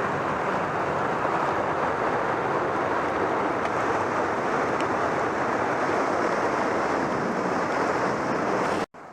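Steady rush of a creek in flood, running high and fast after heavy rain. It cuts off abruptly near the end.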